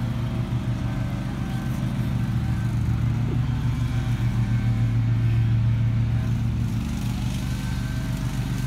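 A motor engine running steadily nearby: a low, even hum with a slight throb, a little louder around the middle of the stretch.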